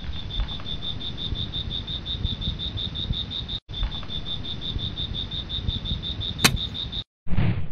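A cricket chirping in a fast, even pulse over a low rumbling hiss, breaking off briefly twice, with one sharp click near the end.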